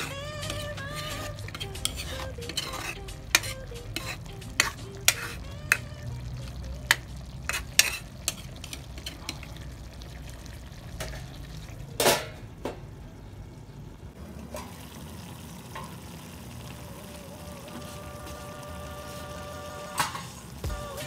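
Metal spatula stirring and clanking against a metal wok of chicken liver igado, over a steady simmering sizzle. The clanks stop after a last louder knock about twelve seconds in, leaving only the simmer.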